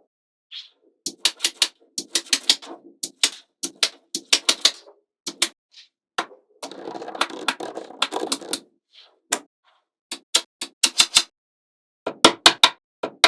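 Small magnetic balls clicking sharply as they snap onto one another, in quick clusters of clicks, with a longer rattle of balls shifting against each other a little past the middle.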